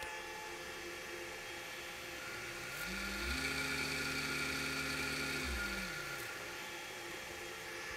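Servo motor run by a repaired servo drive under test. It speeds up about two seconds in, its tone rising, holds a steady speed for a couple of seconds, then slows to a stop, its tone falling away. A steady electrical hum runs underneath.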